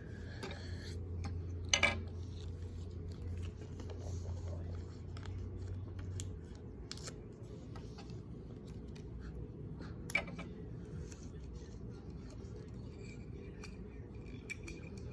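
Small handling noises: scattered light clicks and rustles as a sticker pack and its stickers are handled, with two sharper clicks. A low hum stops about six seconds in.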